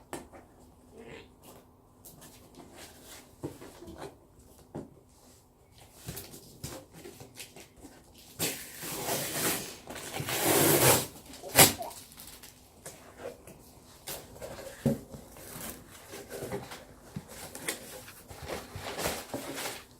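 A cardboard parcel being opened and its packaging handled: scattered clicks and knocks, a longer, louder stretch of rough noise about nine to eleven seconds in, then a sharp knock.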